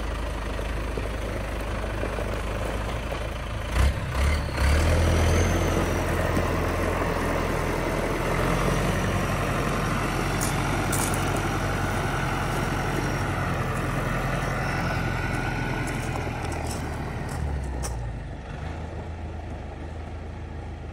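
John Deere 5525 tractor's diesel engine running as the tractor drives across gravel. Two loud knocks come about four seconds in, and the engine gets louder just after. The engine sound fades near the end as the tractor moves away.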